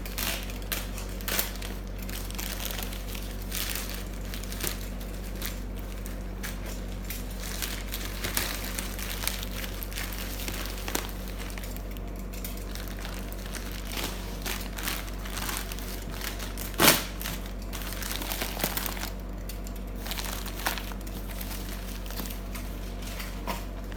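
Packaging cover being crinkled and pulled off a cardboard product box in irregular rustles, with one sharp knock about 17 seconds in. A low steady electrical hum runs underneath.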